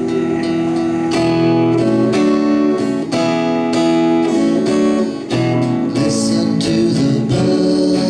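Acoustic guitar playing a song's introduction, chords strummed and picked in a steady rhythm.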